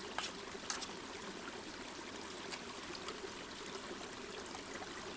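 River water flowing steadily, with a few sharp clicks in the first second.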